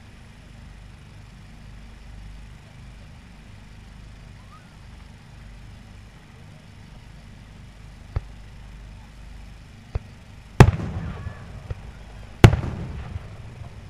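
Fireworks shells bursting: two faint pops, then two loud bangs about two seconds apart near the end, each trailing off in an echoing rumble, over a low steady outdoor murmur.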